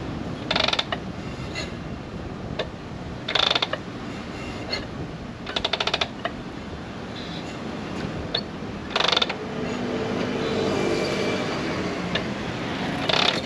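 Harley-Davidson Shovelhead kick-starter kicked through about five times, each stroke a short ratcheting clatter of the kick gear. The engine turns over easily with no compression, because a valve is bent.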